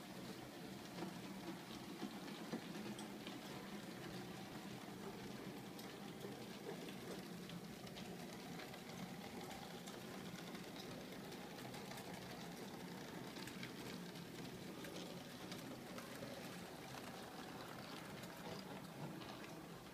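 Model steam locomotive and coaches running on a model railway: a faint steady whir with many small clicking and crackling sounds of wheels on the track.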